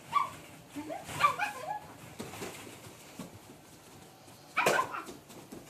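A young child's short, high-pitched wordless vocalizations, a few brief cries early on and a louder, sharper one about three-quarters of the way through.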